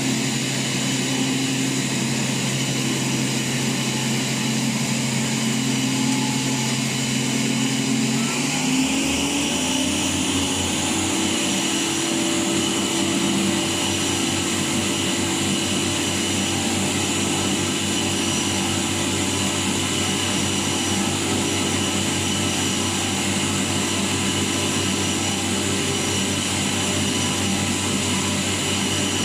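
Emco EmcoTurn 220 CNC lathe running with a steady motor whine. About nine seconds in, the pitch rises and settles at a new steady tone, as the spindle changes speed.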